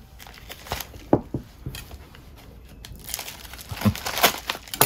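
Cardboard mailer envelope being opened by hand, paper crinkling and tearing. A few sharp rustles come first, then a short lull, then busier crinkling and tearing in the second half.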